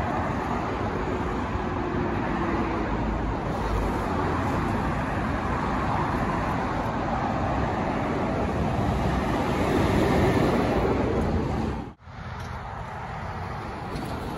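Steady road traffic noise of lorries and cars driving past, swelling a little before the sound cuts out abruptly for a moment about twelve seconds in.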